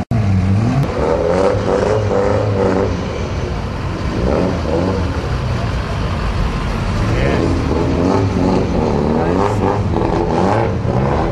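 Car engines revving and pulling away, their pitch rising and falling again and again.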